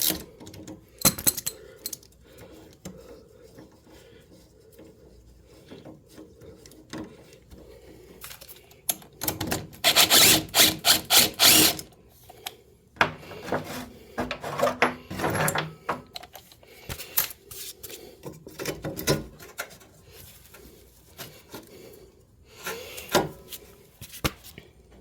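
Hand tools at work on a scooter's rear shock mounting bolts: a socket wrench ratcheting in quick runs, loudest for a few seconds near the middle, with scattered metal clicks and clinks between.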